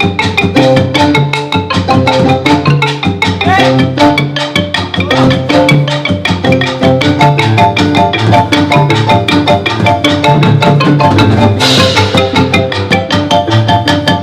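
Instrumental music led by a xylophone playing quick running notes over percussion and a repeating low pulse. Brighter high percussion joins near the end.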